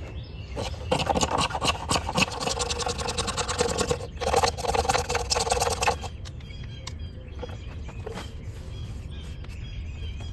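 Spine of a stainless Mora Companion knife scraping shavings off a fatwood block in quick repeated strokes. There are two bouts about three and two seconds long, the second a little louder. Scattered light scrapes and clicks follow.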